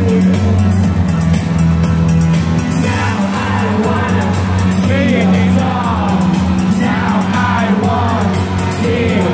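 Live rock band playing loud, with electric guitar, bass and drums keeping a steady beat; a singer's voice comes in about three seconds in.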